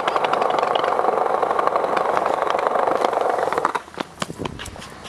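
Longboard wheels rolling fast over pavement: a steady rumble with small clicks from cracks and seams. It cuts off about three and a half seconds in, followed by a few sharp clicks and knocks.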